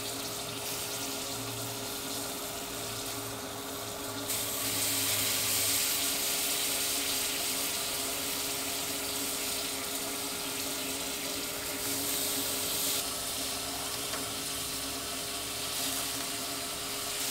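Sauce-dunked chicken thighs sizzling on a hot drum-smoker grate, a steady hiss that gets louder about four seconds in as more pieces go on.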